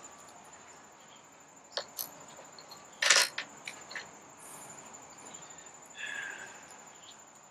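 Hood latch hardware being handled and fitted: a few light clicks, then one sharp clack about three seconds in followed by small ticks.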